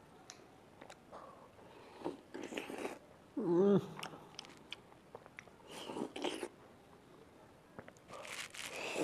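Close-up wet chewing and biting of ripe papaya flesh, with a fresh bite into the slice near the end. About three and a half seconds in, a brief hummed voice sound with a wavering pitch is the loudest thing.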